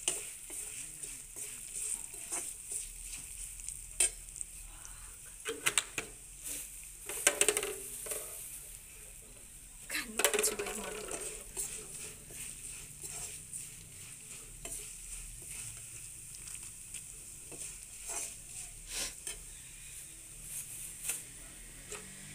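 Spices and roasted gram frying in hot oil in a metal kadai: a steady sizzle, with a metal slotted spoon now and then scraping and clinking against the pan as they are stirred, the strongest strokes about 7 and 10 seconds in.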